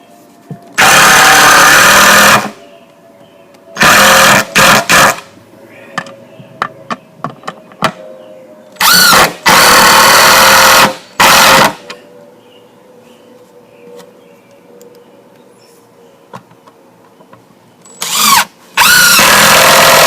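Power drill driving star-drive (Torx) deck screws, in several runs of one to three seconds with short stop-start stutters between them. Each run starts and stops abruptly.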